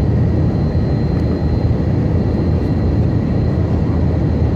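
Tupolev Tu-134 jet airliner's Soloviev D-30 turbofan engines running at steady power: a deep, even rumble with a thin, steady whistle on top.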